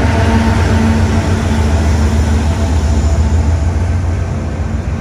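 Rear distributed-power locomotive of an empty rock train, a GE C44ACM diesel, passing close by: a steady low diesel engine drone over the rumble of wheels on the rail. It starts to fade near the end as the locomotive pulls away.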